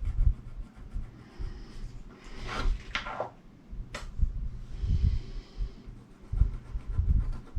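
Handling noises on a wooden board while measuring and marking: light knocks and short rubbing strokes, with one sharp click about four seconds in.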